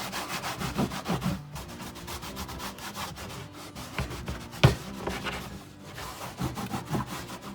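Handling noise from air nailers and staplers being wiped and moved about: continual rubbing and scraping with small clicks, and one sharp knock about halfway through.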